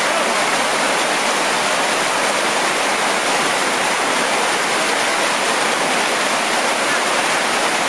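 River water rushing steadily over rocky riffles and small rapids, an even rush with no breaks.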